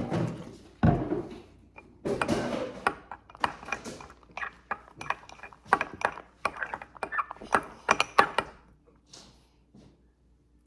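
A quick, irregular run of clicks, taps and knocks from objects being handled, with a heavier thump about a second in; it dies away near the end.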